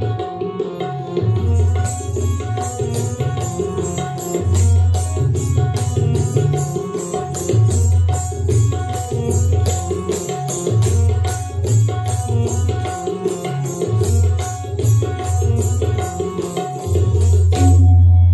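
Kathak dance music with fast, rhythmic tabla strokes over a sustained low drone. The drumming stops near the end on a held low note.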